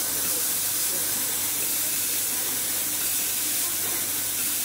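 Automatic laser welding machine welding a pillow plate heat exchanger seam: a steady high hiss with a low, even hum underneath.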